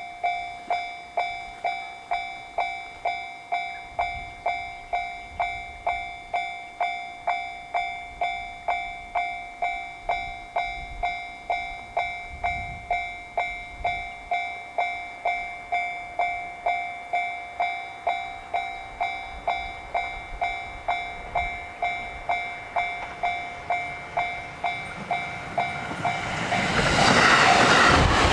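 Japanese level-crossing warning bell ringing its 'kan-kan' at a steady pace, just under two strikes a second. Near the end a JR Sobu Line train reaches the crossing, and the noise of its wheels on the rails rises over the bell.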